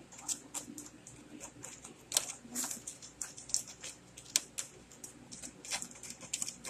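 Irregular sharp clicks and taps, several a second, of kittens' claws and paws on a hard floor and a cardboard box as they play.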